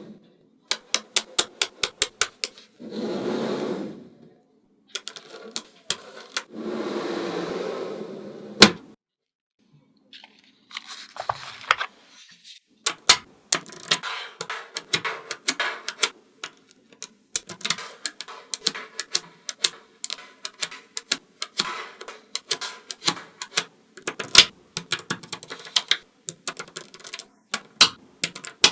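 Small magnetic balls clicking and snapping together in quick runs of sharp clicks, as a model is built from them. In the first nine seconds there are two longer stretches of steady rustling noise.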